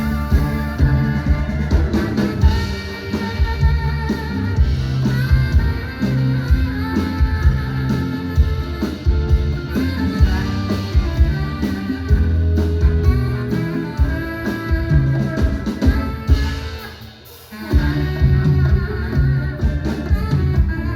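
A live band playing with drum kit, bass and guitar to a steady beat. About three-quarters of the way in the band briefly drops out, then comes straight back in.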